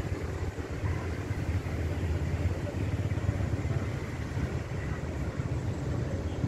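Breeze blowing across a phone microphone: a steady low rumble that flutters unevenly, without pauses.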